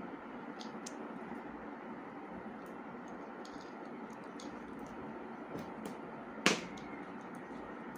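Faint small clicks and rustles of a wire being twisted and tied by hand onto a horn driver unit's terminal, with one sharper click near the end, over a steady low hiss.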